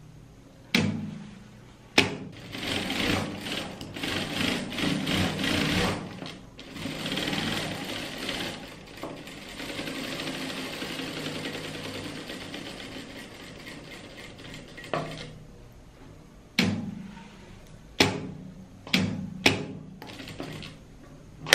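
Industrial single-needle lockstitch sewing machine topstitching a long straight seam: it runs in quick spurts for a few seconds, then steadily and a little quieter, and stops about fifteen seconds in. Sharp clicks and short bursts come about a second in and again near the end.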